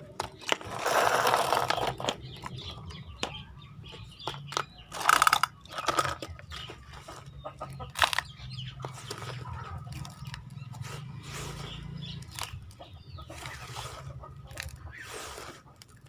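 Sand scooped up by hand and poured into the plastic bed of a toy dump truck: irregular gritty scraping and pouring, loudest from about half a second to two seconds in and again around five seconds in.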